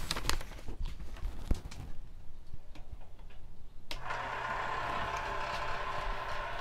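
A few clicks and knocks, then about four seconds in a homemade antigravity generator switches on and runs with a sudden, steady electrical hum.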